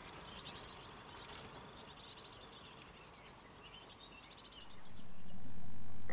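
Great tit nestlings begging in the nest box: a rapid, high-pitched chorus of cheeps that fades out about five seconds in. A steady low hum then comes in near the end and is the loudest sound.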